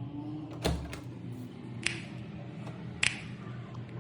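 Finger snaps keeping a slow, even beat, about one every second and a quarter, over a faint steady low hum, as the opening of the background song.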